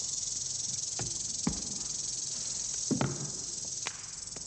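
Steady high-pitched hiss of an old television soundtrack, with a few soft knocks and clicks.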